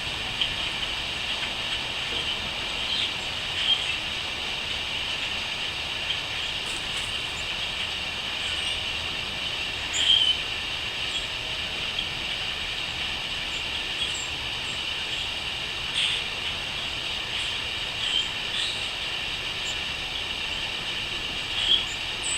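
A steady, high chorus of crickets, with short bird calls every few seconds.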